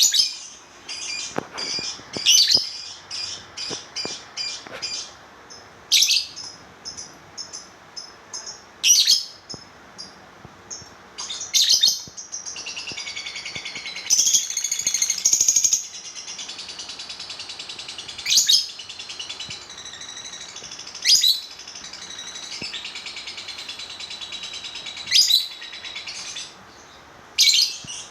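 Lovebird chirping: loud, shrill high chirps every few seconds, with a continuous rapid high chatter running underneath from about halfway until shortly before the end.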